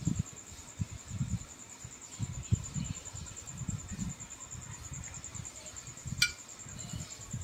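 Steady high-pitched trill of crickets, with soft irregular low thumps and one sharp click about six seconds in.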